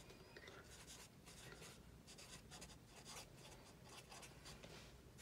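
Black marker pen writing on a paper pad: many faint, short strokes of the tip on the paper in quick succession as words are written out.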